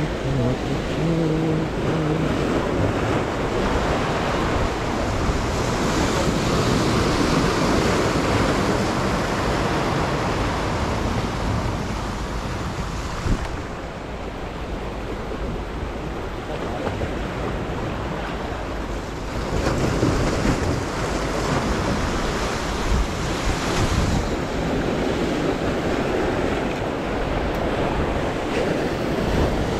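Sea waves breaking and washing over the rocks of a seawall: a continuous rush of surf that swells and eases, softer for a few seconds around the middle.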